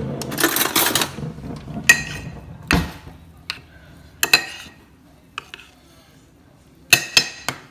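A metal spoon stirring rolled oats and almond milk in a ceramic bowl: a scraping stir, then several sharp clinks and taps of the spoon against the bowl.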